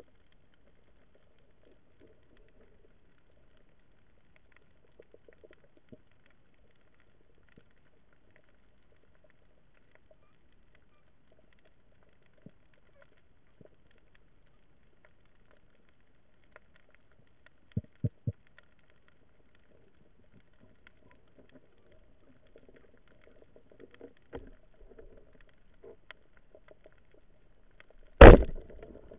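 Rubber-band speargun firing underwater: one loud, sharp bang near the end as the bands release. Before it, faint scattered clicks and three short knocks a little past the middle.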